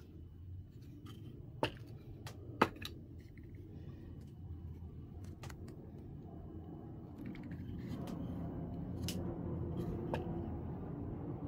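Cut-down red frying pan bins full of screws being swung out and handled on their hinges, with screws rattling and light metal clicks. Two sharp knocks come about a second apart, roughly two seconds in, and a low hum swells in the second half.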